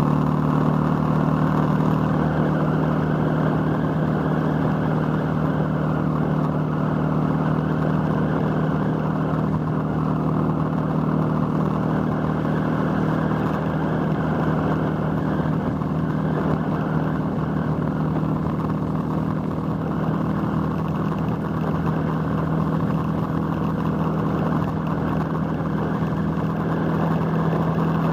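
Motorcycle engine running at a steady cruise, its pitch holding nearly constant, mixed with road and wind noise, heard from a camera mounted on the moving bike.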